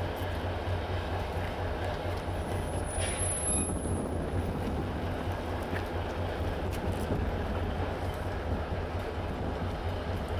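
DB Schenker diesel locomotive's engine running with a steady low hum as the locomotive creeps slowly alongside its coaches.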